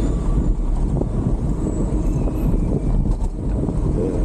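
Steady wind noise buffeting the microphone of a camera on a moving bicycle, over the sound of road traffic.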